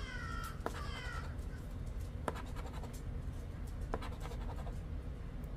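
A coin scratching the coating off a scratch-off lottery ticket, with a few sharp clicks. There are two brief high-pitched calls in the first second or so.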